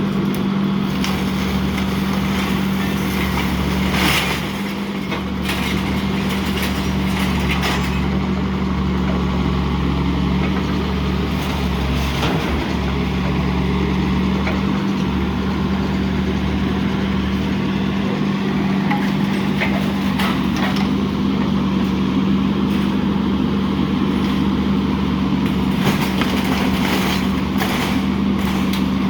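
Heavy vehicle engine idling steadily, with a few sharp knocks now and then as scrap is handled.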